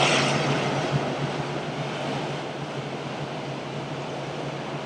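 Steady low drone of a passing inland cargo ship's diesel engine over an even hiss of moving water, with a louder rush right at the start that fades within the first second.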